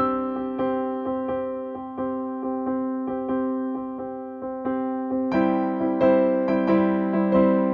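Background music on electric piano: a gentle melody of evenly struck notes, a few a second, that grows fuller about five seconds in.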